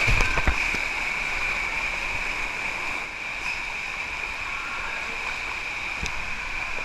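Water rushing steadily down a Klarer 'Crazy River' wild-water slide, heard from a camera riding along in the flow, with a few knocks in the first half second.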